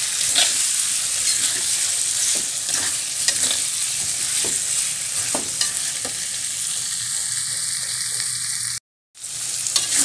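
Chicken gizzards in chili paste sizzling in a metal wok, with a metal spatula scraping and tapping the pan as they are stirred. The sound cuts out for a moment near the end.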